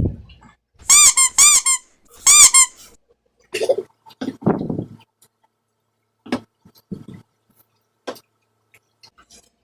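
Three short, high-pitched squeaks, each arching up and down in pitch, in the first few seconds. These are followed by scattered softer noises and a few sharp clicks.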